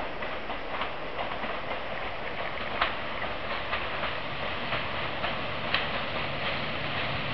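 Approaching diesel railcar: a steady rumble with sharp clicks about twice a second, wheels running over rail joints, and a low engine hum that grows as it comes round the bend.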